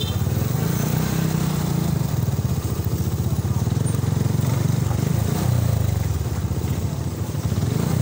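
Motorcycle engine running steadily at low revs, a fast even pulsing rumble.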